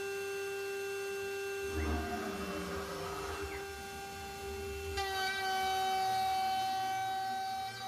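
CNC router spindle whining at a steady high pitch while a two-flute BAP300R cutter with PCD inserts face-mills aluminium at 1 mm depth of cut. A brief falling sweep comes about two to three seconds in, and about five seconds in the whine steps to a brighter tone with stronger overtones.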